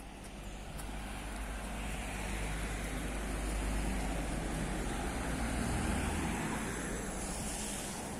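A car passing by on the road, its noise swelling to a peak around the middle and then fading away.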